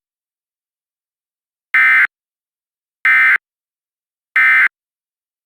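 Three short bursts of EAS digital SAME data, the End of Message code that closes an emergency alert. Each is a buzzy data tone about a third of a second long, and they come about a second and a quarter apart.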